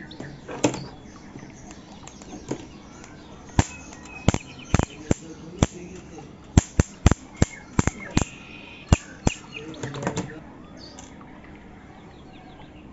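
Electric mosquito swatter's high-voltage mesh arcing to a screwdriver tip: a dozen or more sharp snapping cracks, irregularly spaced, over about six seconds. The sparks show the racket's high-voltage circuit is working.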